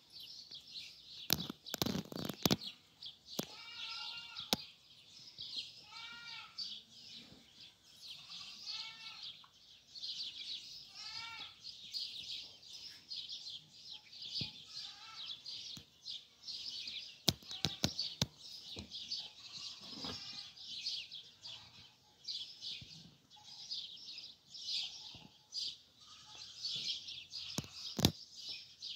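Small birds chirping and singing throughout. A short call that rises and falls is repeated about every two seconds through the first half, and there are a few sharp knocks.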